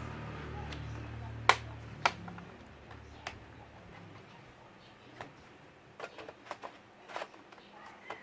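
Sharp clicks and taps from handling the opened laptop and its parts: two loud clicks about a second and a half in, then lighter, irregular clicks in the second half. A low hum underneath fades away within the first few seconds.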